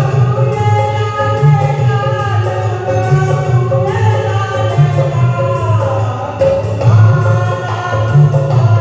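Devotional Hanuman bhajan sung with musical accompaniment: the voices hold and glide through long notes over a steady repeating low rhythm.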